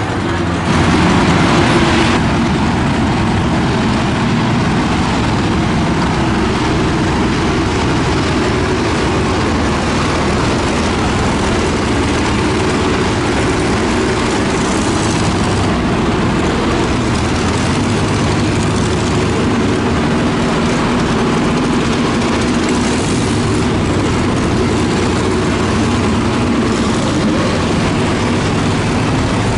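A 1969 Zink Formula Vee's air-cooled Volkswagen flat-four engine idling steadily, briefly louder about a second in.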